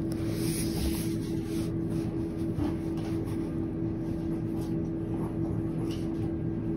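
A steady low electrical hum, with a few faint soft ticks.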